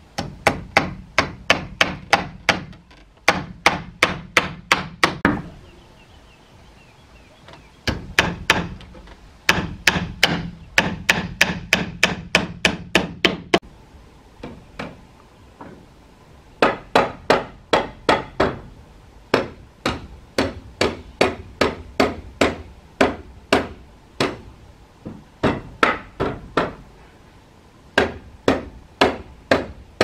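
Hammer nailing wooden boards: quick runs of sharp blows, about three or four a second, broken by short pauses.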